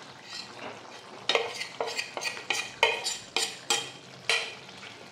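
Metal spatula clinking and scraping against a steel kadai and a plastic bowl as hard-boiled duck eggs are slid into thick simmering curry gravy: about eight sharp clinks, some with a short metallic ring.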